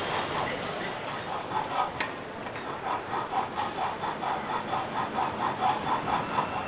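Hand saw cutting with quick back-and-forth strokes, about three a second, after a single sharp click about two seconds in.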